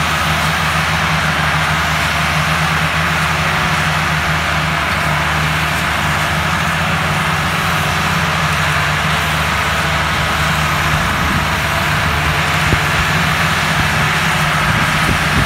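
Several tractor diesel engines running together at a steady, unchanging pitch, working hard under heavy load to drag an overloaded sugarcane trolley.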